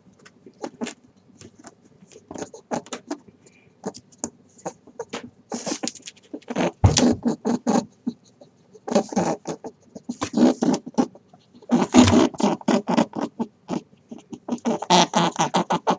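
Rabbit making quick, rapid clicking noises in several bursts separated by short quieter gaps.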